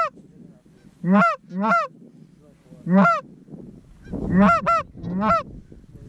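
Loud goose honks, one at a time: a quick pair about a second in, a single honk near three seconds, then two more quick pairs in the last two seconds.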